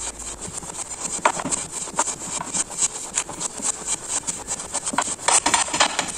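Masala papad being dry-roasted on a tawa, pressed and rubbed around the pan with a folded cloth: a dense run of short crackles and scrapes, busiest a little after five seconds in.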